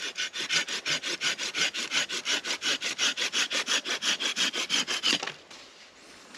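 Folding hand saw cutting through firewood in quick, even back-and-forth strokes, about five a second, stopping a little after five seconds in.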